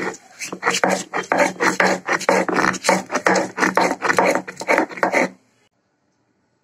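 Stone roller scraping back and forth over a shil-pata grinding slab, working fried onion, turmeric and cumin into a paste: a quick rasping rub of about four strokes a second that stops suddenly about five seconds in.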